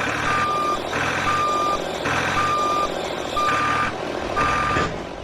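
Vehicle reversing alarm beeping at a steady pitch, about one half-second beep per second, over a low engine rumble.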